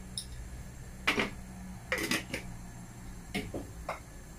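Several short clicks and clatters, the loudest about a second in, as small whole spices are dropped into a non-stick frying pan of melted butter and handled at the stove.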